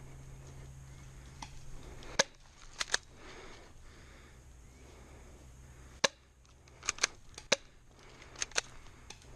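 Airsoft guns firing: about nine sharp snapping shots, some single and some in quick pairs, spread over several seconds.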